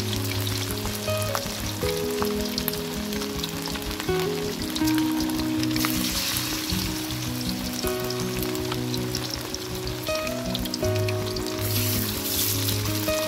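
Pork ribs coated in a lemongrass-chilli marinade sizzle steadily in shallow oil in a wok over a low flame. A soft melody plays underneath.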